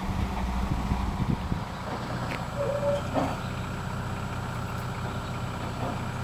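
Flatbed delivery truck's engine running at idle, its hum dropping in pitch about two seconds in, with a few light knocks.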